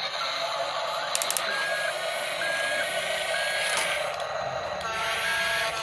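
Radio-controlled toy excavators' small electric motors and plastic gearboxes whirring steadily as they work, with a string of short, high beeps.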